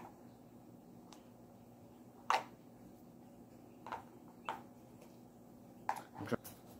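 A thin plastic cup being handled and pressed, giving a handful of sharp, scattered clicks and crackles, the loudest about two seconds in. A faint steady hum sits underneath.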